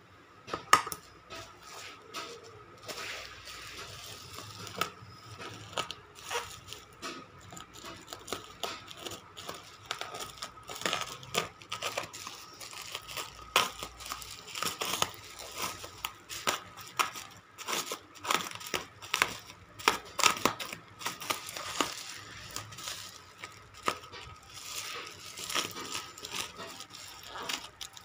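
Plastic bubble wrap crinkling and crackling as hands grip and pull at it, with many sharp clicks and crackles in an irregular stream, busier in the second half.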